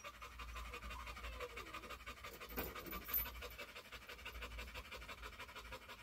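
A pit bull-type dog panting rapidly and steadily, with a brief click about three seconds in.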